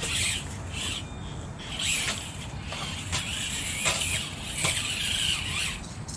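Micro-scale RC rock crawlers' small electric motors and geartrains whining in short on-off bursts as they climb over rocks, with sharp clicks and scrapes of the tires and chassis on stone.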